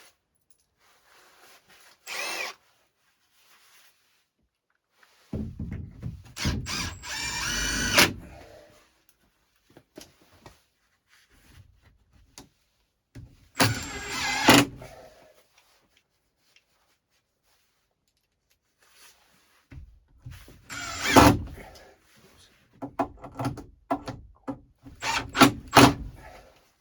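Cordless drill-driver driving hinge screws in several short bursts, its motor whine rising in pitch as it spins up, with clicks and knocks of handling in between.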